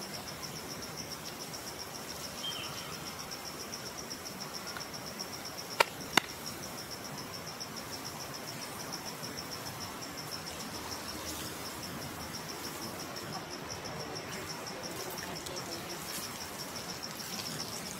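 Insects, likely crickets, trilling steadily in a high-pitched, rapidly pulsing chorus. Two sharp clicks come a fraction of a second apart about six seconds in.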